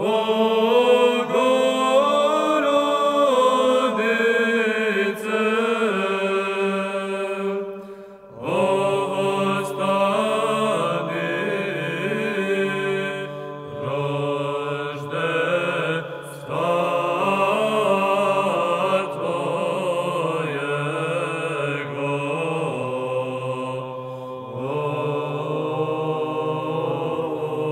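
Male voices singing Orthodox Byzantine-style chant in the church, a melodic line over a held low drone note (ison). The singing stops briefly about eight seconds in, then resumes.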